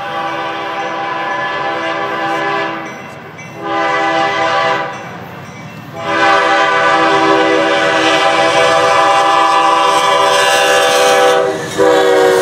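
Diesel locomotive's multi-note air horn sounding for a grade crossing: a long blast, a short blast, then a long held blast that breaks briefly near the end as the locomotive reaches the crossing. Underneath is the rumble of the approaching train. The lead unit is BC Rail C44-9WL 4652.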